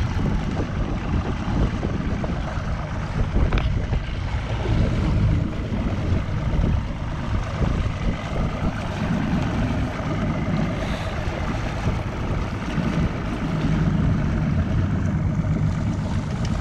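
Boat under way at trolling speed: a steady outboard motor and water noise, with wind buffeting the microphone. A single sharp click comes about three and a half seconds in.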